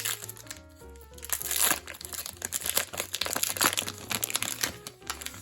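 Wax-paper wrapper of a baseball card pack crinkling and crackling as it is handled and torn open, starting about a second in and easing off near the end. Soft background music plays underneath.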